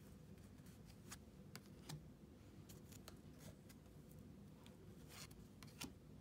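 Trading cards being flicked through one at a time, each moved from the front to the back of a small stack in the hands: faint scattered clicks and short rubs of card against card.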